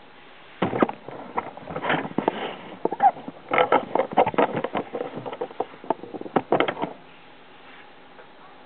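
Electrix Torment electric RC truck running over rough ground, a run of irregular clattering and scraping starting about half a second in and stopping about seven seconds in.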